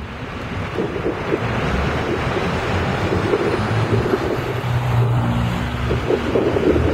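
MTA New York City hybrid-electric city bus pulling away from the stop and driving past, its engine and drive running under city traffic noise, growing louder over the first second or two.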